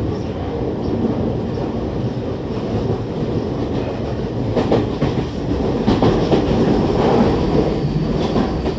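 Tokyu 5050 series commuter train running at speed, heard from inside the car: a steady rumble of wheels on rail, with clacks over rail joints in the second half.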